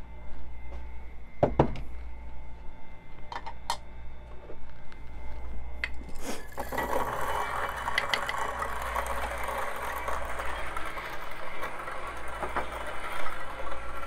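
Cafetech MC5 electric burr grinder grinding coffee beans. A dosing cup is set down with a knock about a second and a half in, followed by a few light clicks. From about six seconds in, the grinder runs steadily.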